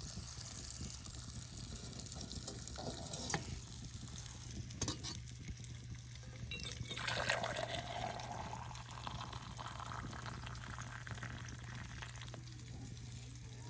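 Campfire burning down to coals, hissing steadily with a few sharp crackles and a louder hiss about halfway through.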